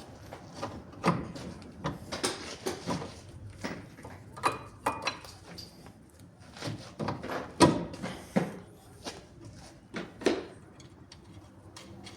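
Irregular metal clinks and knocks of hand tools and parts being handled while working on a car's steering tie rod end. The loudest knock comes a little past halfway.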